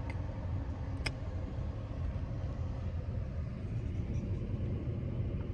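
Steady low rumble of a car, heard from inside, with one sharp click about a second in.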